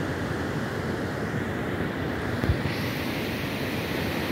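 Steady wind rushing over the microphone while moving along an open road, with a brief low thump about two and a half seconds in.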